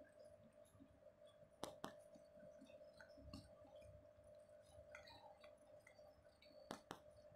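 Faint wet licking and chewing from a mother cat cleaning her newborn kitten, with two pairs of sharp clicks, one about a second and a half in and one near the end, over a faint steady hum.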